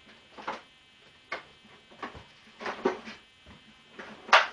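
Irregular knocks and clatters of parts and tools being handled during a motorbike strip-down, with a quick run of louder knocks near the end.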